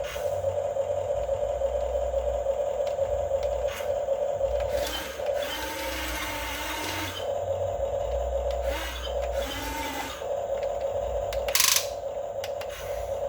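Electric motors of a Huina 1550 RC model excavator whining steadily, their pitch shifting twice in the middle as the drives work harder, with one sharp knock near the end.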